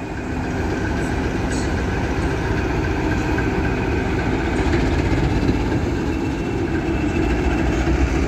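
CP Series 1400 diesel locomotive passing slowly at close range, its diesel engine running with a steady, even drone.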